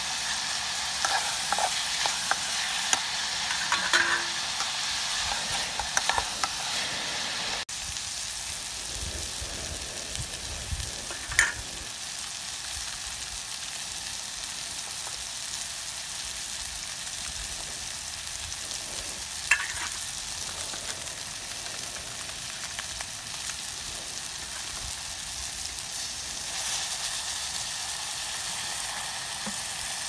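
Chopped vegetables frying and sizzling in an aluminium pot on a portable gas stove, a steady hiss throughout. A metal spoon clinks against the pot several times in the first few seconds as the food is stirred, and twice more later.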